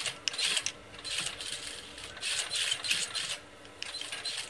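Scissors cutting through cloth, in several short runs of crisp snipping strokes.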